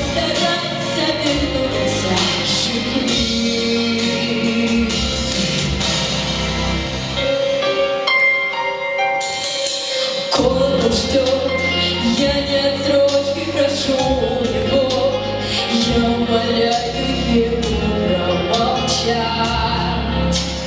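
A girl singing a song over an instrumental accompaniment with bass and percussion. The bass drops out for about two seconds midway, then comes back.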